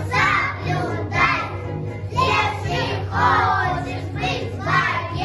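A group of young children singing a Russian folk song together over a musical accompaniment with a steady bass beat.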